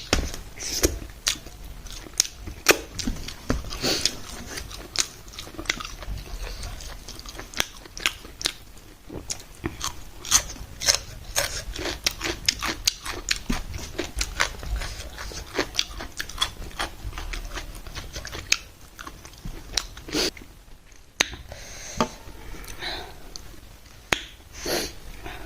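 A person eating close to the microphone: steady chewing and biting with many small, irregular wet clicks and smacks, pausing briefly near the end. The food is rice, potato-and-pea curry and buffalo meat.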